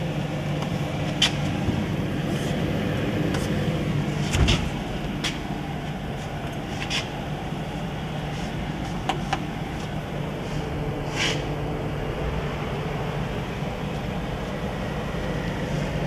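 Steady low mechanical hum with scattered light clicks and knocks as an open GE side-by-side refrigerator is handled; one louder knock comes about four and a half seconds in.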